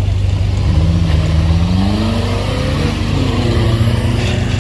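Jeep Cherokee XJ's engine revving as it accelerates off toward a steep dirt hill-climb. Its pitch climbs, drops briefly about three seconds in, then climbs again.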